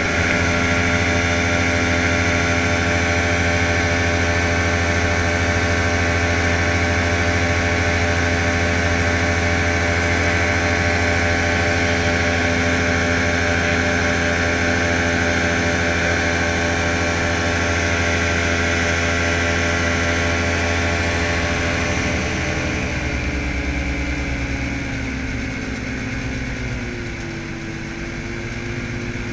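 Rans S12 ultralight's engine and propeller droning steadily in flight. About 22 seconds in the engine is throttled back: its pitch slides down and it gets quieter, as the aircraft descends toward the runway to land.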